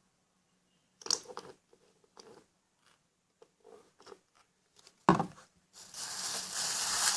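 Handling of a plastic freezer bag and liquid soap: scattered soft crunching and squishing, a sharp knock about five seconds in, then loud continuous crinkling-like noise.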